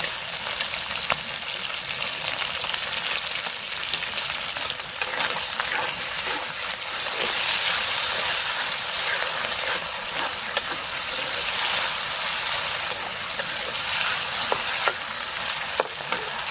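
Pork and garlic sprouts sizzling in hot oil with doubanjiang as they are stir-fried, a steady frying hiss with occasional light clicks of the utensil against the pan; the sizzle swells about halfway through.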